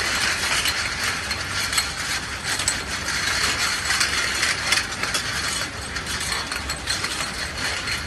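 Automatic glass bottle washing machine running: its gripper and turnover mechanism clatters steadily, with a dense run of small clicks and clinks.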